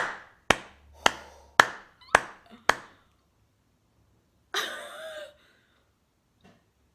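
Six sharp hits, evenly spaced about two a second, each with a short ringing tail. About four and a half seconds in comes a brief vocal exclamation with falling pitch, a reaction of surprise.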